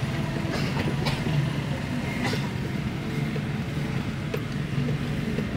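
Kia Rio's engine running steadily, now starting and running after its engine computer was repaired, with a few light clicks over the hum.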